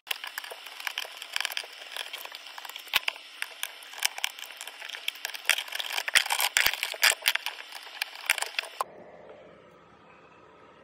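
Plastic and metal clicking, scraping and rattling as a four-gang wall socket outlet is pried out of its flush-mounted wall box with a screwdriver and handled. The noise is a dense run of sharp clicks and scrapes that cuts off suddenly about nine seconds in.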